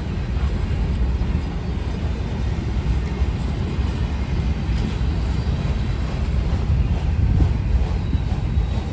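Freight train rolling past at close range: boxcars and autorack cars running on the rails with a steady noise of wheels on track, no horn.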